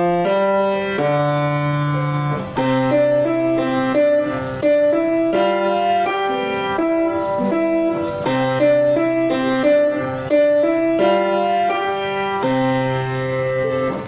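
Grand piano being played: a melody line over held bass notes, with new notes every half second or so.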